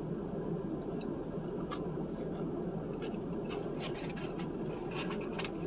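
Small scattered clicks and scratchy rustles of eating and handling food, over a steady low hum.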